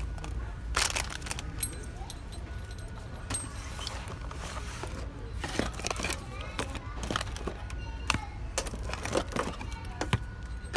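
Boxed toys and plastic toy capsules being handled on a store shelf: irregular small clicks, taps and rattles over a low steady rumble.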